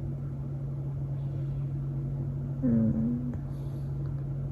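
A woman's short, closed-mouth hum, a brief "mm" about three seconds in, dipping slightly in pitch and then holding, over a steady low background hum.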